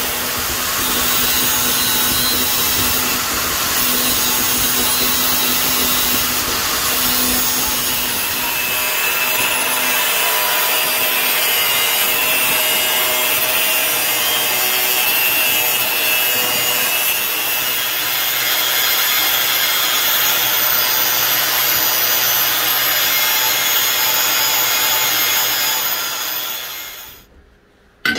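Angle grinder with an abrasive cut-off disc cutting a knife blank out of steel plate: a steady, loud grinding hiss with a faint whine, which stops about a second before the end.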